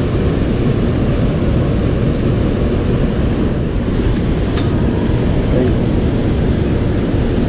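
Steady rush of white water pouring through a dam's spillway into the river below, an even, unbroken noise. A single faint short click a little past halfway.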